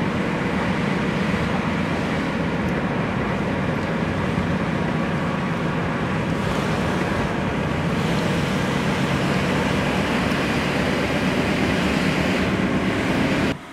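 Steady road and engine noise of a car driving, heard from inside the moving car; it cuts off suddenly near the end.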